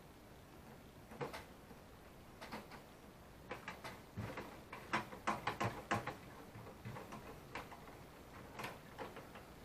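Irregular small clicks and light knocks, a few at a time, busiest from about three and a half to six seconds in. They fit hands and tools working on a cassette deck's plastic gears and mechanism.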